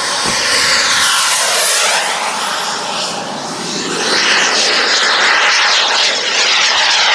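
An 18 kg-thrust KingTech model jet turbine on a Carf Viper Jet RC jet running at speed in fast passes: a loud jet rush and whine. A high whine slides down in pitch about a second in as the jet goes by; the sound dips around three seconds in, then swells again.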